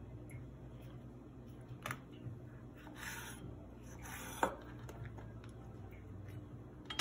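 Kitchen knife cutting the rib out of cabbage leaves on a wooden cutting board: faint scraping and slicing, with a sharp tap of the blade on the board about four and a half seconds in.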